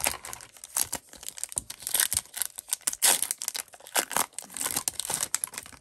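Wrapper of a 2019-20 Upper Deck Series 1 hockey card pack being torn open and crinkled, an irregular run of crackles and rustles.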